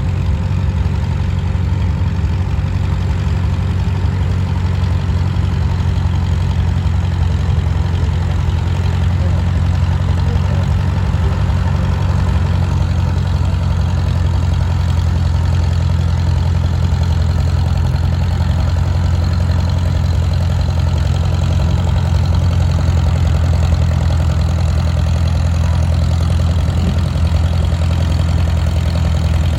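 An engine running steadily at idle, a low, even hum that holds unchanged throughout.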